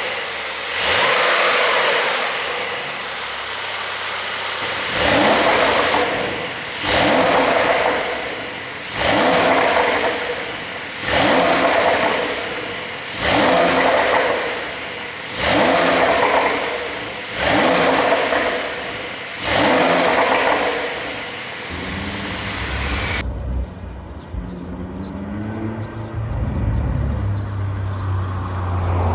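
2024 Porsche 911 Carrera S's 3.0-litre twin-turbo flat-six being blipped about eight times, roughly two seconds apart, each rev falling away into exhaust pops and crackle on the overrun from its pop-and-bang ECU tune. Near the end it settles to a lower, steadier engine note that rises again.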